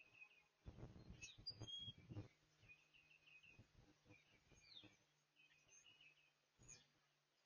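Faint birdsong: small birds chirping in short repeated series of quick notes. About a second in there is a louder burst of rustling and knocking, with another short knock near the end, over a faint steady hum.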